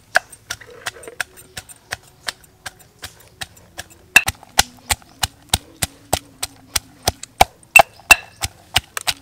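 Stone pestle pounding garlic and red chilies in a stone mortar: a steady run of sharp knocks. They are lighter at first, then come harder and faster, about three strokes a second, from about four seconds in.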